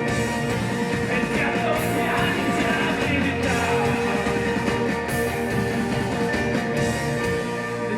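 Punk rock band playing live with electric guitars, bass and crashing cymbals, the lyrics shouted over it.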